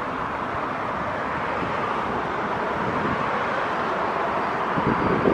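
Steady hiss of road traffic, with wind gusting on the microphone near the end.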